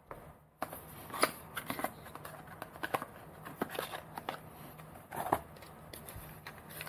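Small white cardboard box being handled and opened by hand: scattered light taps, scrapes and paper rustles.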